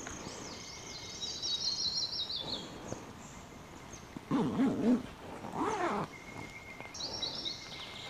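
Forest songbird singing a rapid, high-pitched warble of quick up-and-down notes for the first few seconds and again near the end, over a thin, steady whistle. About four and five and a half seconds in come two louder, lower sounds whose pitch wavers.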